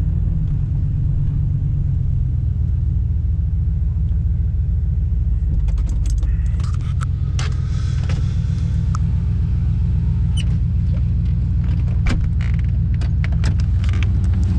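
A vehicle engine running steadily with a low rumble. From about six seconds in, scattered clicks and rattles sound over it.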